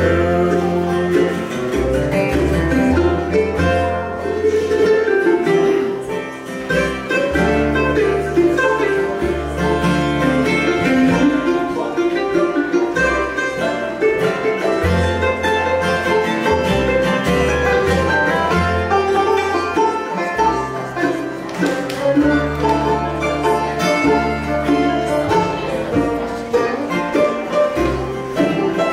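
Bluegrass band playing an instrumental passage, with banjo and guitar picking over a bass line.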